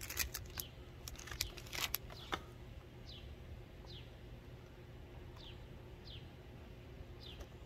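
Crisp crunching of a Pocky biscuit stick being chewed in the first couple of seconds, then a bird repeating a short, high, falling chirp about once a second.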